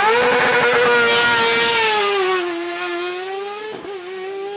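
Motorcycle-engined Osella PA21 JRB sport prototype accelerating hard away from a hill-climb start, its high-revving engine note held up high, then slowly falling in pitch and fading as the car draws away. A brief dip in the note near the end is a gear change.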